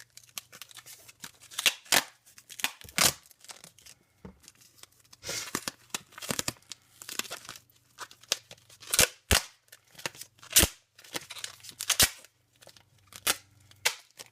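Duct tape being pulled off the roll and torn, a series of sharp rips with a longer stretch of tearing partway through, as it is wrapped around cardboard squares.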